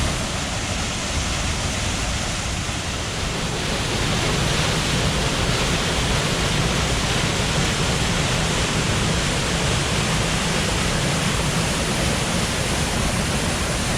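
Rifle Falls waterfall pouring: a steady, unbroken rush of falling water.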